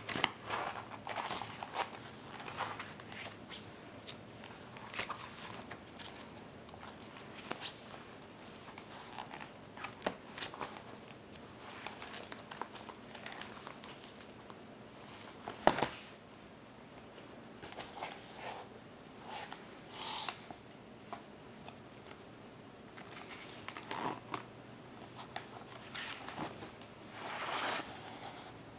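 Pages in clear plastic sheet protectors of a ring recipe binder being turned and handled, giving soft rustles and scattered light clicks. A single sharp click a little past the middle is the loudest sound, and a longer rustle comes near the end.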